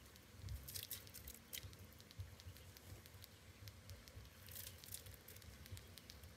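Faint rustling and pattering as handfuls of chopped fresh herbs and green onions are scooped from a glass bowl and dropped into a pot of rice in water, in a couple of bursts about a second in and near five seconds.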